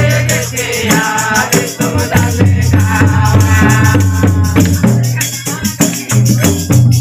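A Mundari devotional bhajan sung to a steady percussion beat over a low, sustained accompaniment. The singing is clearest in the first few seconds.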